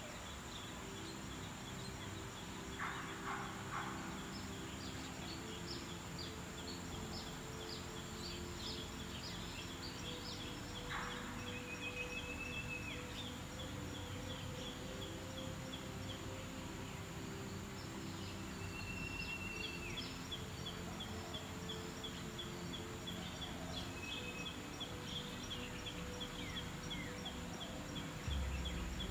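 Small birds chirping and calling, with rapid high ticking and a few short whistles, over a steady low hum. A low rumble comes in near the end.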